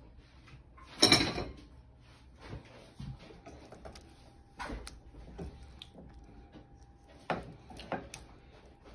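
Silicone spatula scraping and turning sauce-coated chicken wings in a stainless steel skillet: a sharp clank against the pan about a second in, then several softer scrapes and knocks spread through the rest.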